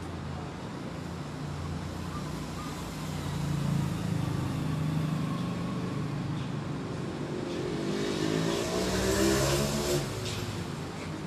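A motor vehicle engine running and rising in pitch, growing louder to a peak about nine to ten seconds in, then falling away, like a vehicle passing.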